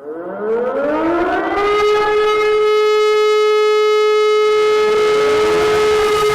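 Civil defence siren winding up from a low pitch to a steady high tone over about two seconds, then holding that tone.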